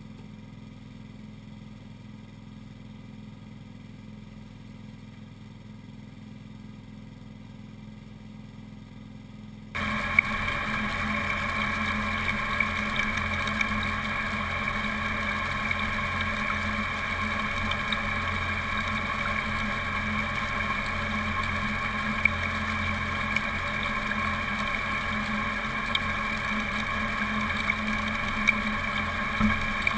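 Small gasoline engine driving a highbanker's water pump, running steadily at constant speed. For the first ten seconds it is faint; then it jumps suddenly louder and stays even.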